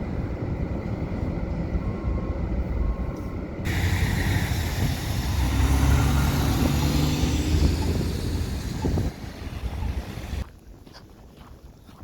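A vehicle running, heard as a steady low rumble that grows louder about four seconds in and then cuts off sharply near the end.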